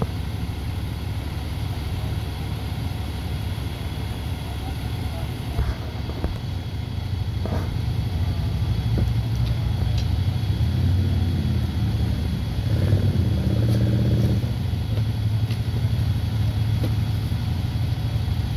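Truck engine idling steadily, with a louder pitched engine note swelling for about two seconds past the middle, and a few faint knocks.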